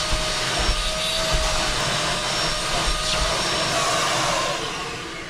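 Kärcher wet-and-dry vacuum cleaner running with a steady rushing noise; near the end it is switched off and begins to wind down, its pitch falling.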